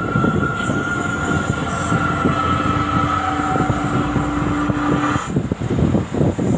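A moving vehicle rumbling and rattling on the road, with a steady high whine and a lower hum from the drivetrain that cut off about five seconds in.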